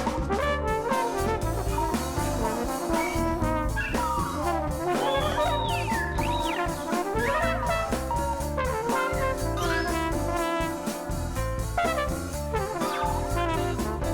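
Background jazz music with horns playing sliding melody lines over a steady drum beat.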